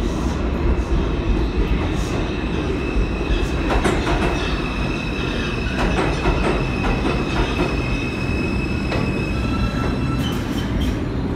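New York City subway train moving through the station: a steady rumble, a high steady whine from about three to nine seconds in, and several sharp clacks.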